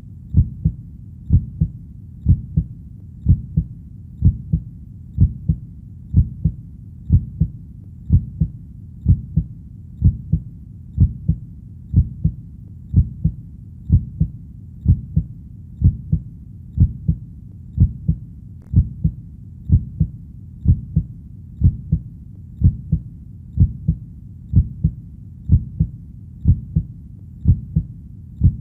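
A steady, slow heartbeat: low double thumps (lub-dub) about once a second, keeping an even rhythm over a faint low background.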